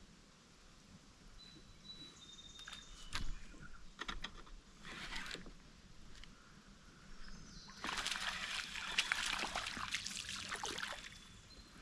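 Water splashing and sloshing, loudest in a stretch of about three seconds near the end, with a few sharp clicks before it and birds chirping.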